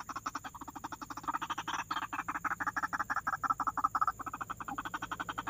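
White-breasted waterhen calling: a fast, evenly repeated croaking chatter of about a dozen notes a second, louder through the middle and dropping back near the end.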